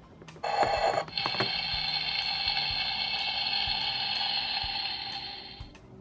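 Electronic cooking sound effect from the Minnie Mouse Bowtastic Kitchen toy stove's small speaker. A short opening sound is followed by a steady frying sizzle lasting about four seconds, which fades out near the end.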